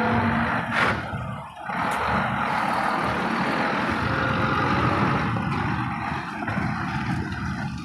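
Diesel tractor unit pulling a tipper semi-trailer, driving slowly past close by, its engine running steadily.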